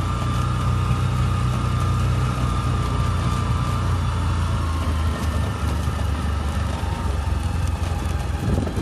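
Vehicle driving along, heard from inside the cabin: a steady low engine and road drone with a faint steady whine above it.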